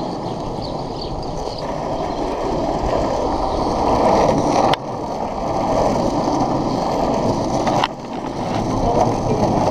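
Globe Big Blazer cruiser skateboard's wheels rolling over rough asphalt: a steady, gritty rumble picked up by a camera mounted low on the board. Two sharp clicks cut in, about five seconds in and again near eight seconds, each followed by a brief dip in the rumble.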